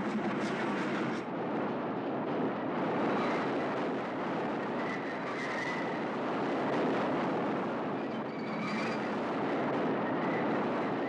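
Train running along the track at a steady pace, with a dense rumble of wheels and rails. A faint high squeal comes in twice, once around the middle and once near the end.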